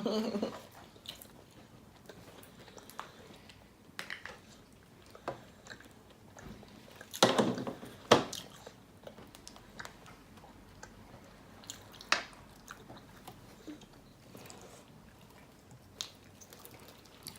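Close-up chewing and biting of fried chicken and honeycomb, with scattered short crunches and wet mouth sounds; louder bites come about seven, eight and twelve seconds in.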